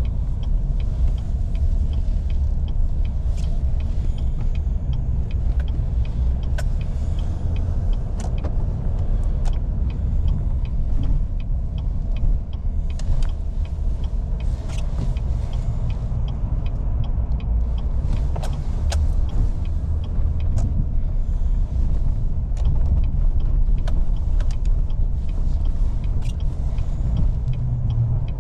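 Truck driving, a steady low rumble of engine and road, with scattered light clicks and rattles.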